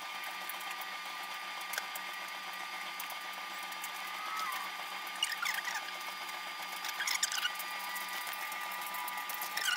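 Kitchen knife cutting into a pumpkin, giving a few short squeaks, about five, seven and nine and a half seconds in, over a steady background hum.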